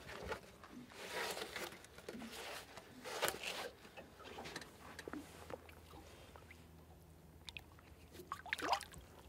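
Scuffing and rustling as a sevengill shark pup is handled and slides on a plastic cooler lid, with a few small knocks, then a soft splash near the end as it is lowered into the water.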